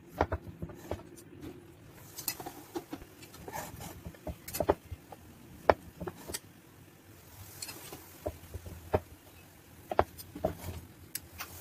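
Hand pressing and pushing chickpea-flour dough along a wooden board, with scattered light knocks and clicks as a knife blade is worked against the board to lift the thin strip.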